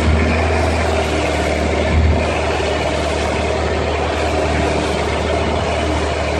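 Boat engine running steadily under way, a low hum over a constant hiss.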